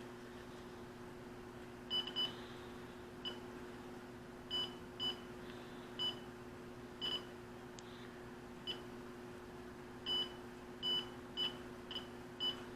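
GWInstek GDM-350B digital multimeter's continuity beeper sounding in about a dozen short, irregularly spaced beeps of one high tone as the test leads make contact. The beep comes in a little slowly, but not too badly. A faint steady low hum runs underneath.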